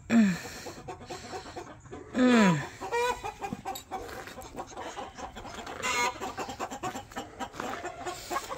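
Chickens clucking in a few separate calls, some falling in pitch, with light rustling and clicks in between.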